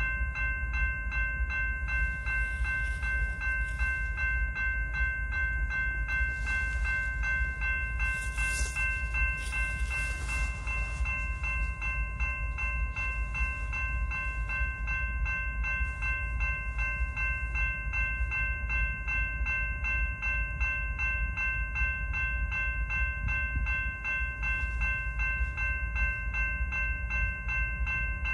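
Railroad grade-crossing warning bell ringing steadily in fast, even strokes, over the low rumble of a slow-rolling freight train of covered hopper cars.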